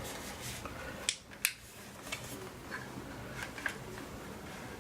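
Two sharp clicks a third of a second apart about a second in, then a few fainter scattered clicks and light handling noise over quiet room tone.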